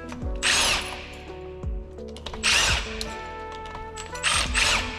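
Cordless impact wrench run in three short bursts, driving the flywheel puller's centre bolt on a Tohatsu 9.8 HP outboard to pull the flywheel. Background music plays throughout.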